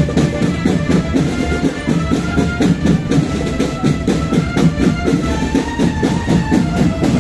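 Marching drum band playing: drums beating a dense, fast rhythm, with a melody of short notes above them.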